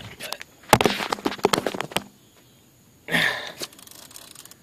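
Handheld camera being jostled and handled: a quick run of knocks and rattles, then a short rush of noise about three seconds in.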